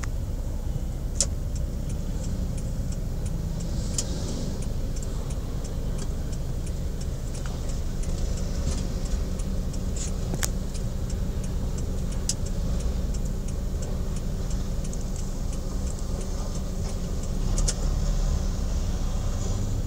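Road traffic: car, motorcycle and truck engines running in slow-moving traffic, a steady low rumble with scattered sharp ticks and clicks.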